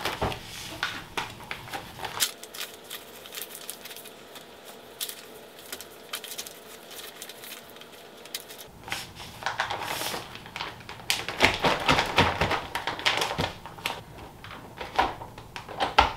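Plastic vacuum-sealer bag crinkling and rustling with irregular clicks and taps as raw chicken necks are packed into it by hand. Near the end comes a sharp click as the vacuum sealer's lid is pressed shut.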